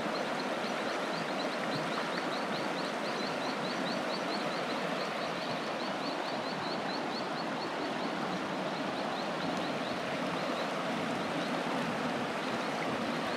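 Mountain river rushing steadily over a rocky riffle, with a fast run of faint, high, repeated chirps over most of it.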